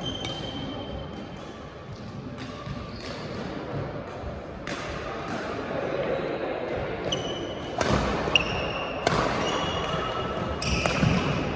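Badminton play in a sports hall: sharp racket hits on the shuttlecock, coming more often in the second half, and short high squeaks of court shoes on the floor, with the hall's echo.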